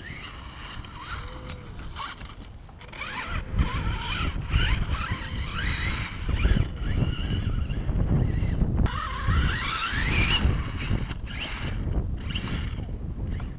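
Radio-controlled truck's motor revving in repeated rising whines as it speeds up and backs off over the dirt, over a low rumble, getting louder about three seconds in.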